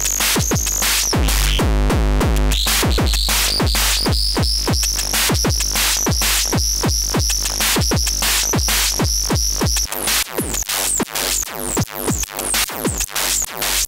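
Akai Tom Cat analog drum machine pattern run through a Schlappi Engineering Angle Grinder module for distortion: fast, repeating drum hits with a high whistling tone and a low hum under them. About ten seconds in, the tone and hum drop out and the hits stand out drier and choppier.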